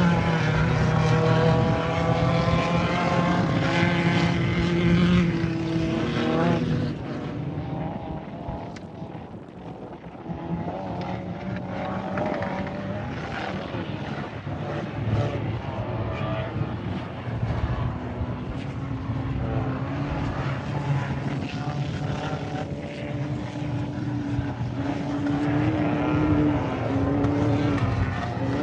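Class 1600 desert race buggy's air-cooled four-cylinder engine running hard, its pitch rising and shifting with the throttle. The engine note drops away about a third of the way in, then builds again and holds steady toward the end.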